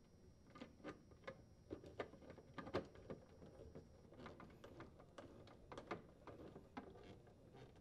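Faint, irregular clicks and taps as a screwdriver turns a screw into the refrigerator's plastic wire harness cover.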